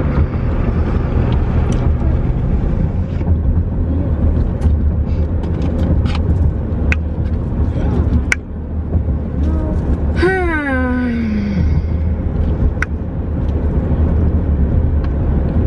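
Steady low road rumble inside a moving car's cabin, with scattered light clicks and knocks. About ten seconds in, a voice slides down in pitch for a little over a second.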